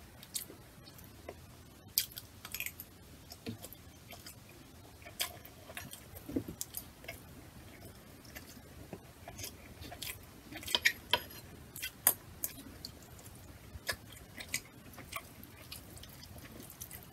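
Close-miked chewing and mouth sounds, with scattered sharp clicks of a metal fork and spoon scraping and tapping against a glass bowl and plate.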